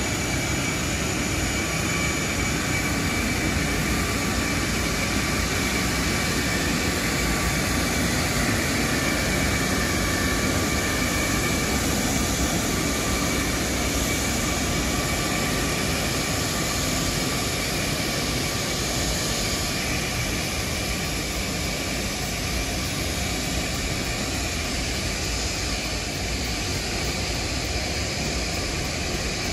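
Antonov An-124-100's four Progress D-18T turbofan engines running at taxi power as the freighter taxis: a steady jet rush with a faint high whine over it.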